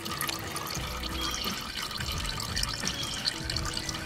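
Engine oil running steadily out of a loosened spin-on oil filter into a catch can.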